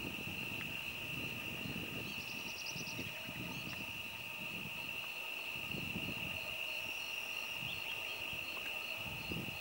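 Insects droning steadily in one high tone, with wind gusting on the microphone and a short run of high chirps about two seconds in.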